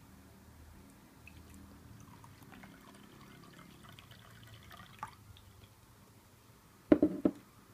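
Water poured at the same time from a mug and a plastic bottle into two glass tumblers holding tea leaves: a faint trickle and splash that stops about five seconds in. Near the end come three quick knocks close together, louder than the pouring.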